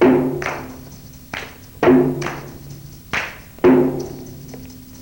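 Instrumental exercise music carried by a slow, steady beat of resonant drum hits, each ringing out and fading, with a light high shimmer between the strikes.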